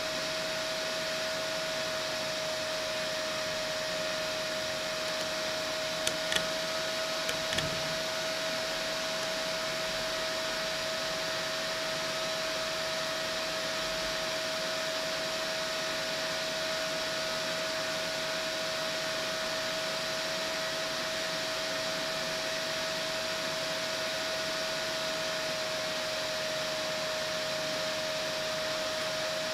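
Cooling fan on a Peltier cooler's heatsink running steadily: an even whir with a constant mid-pitched whine in it, and a few light clicks about six to seven seconds in.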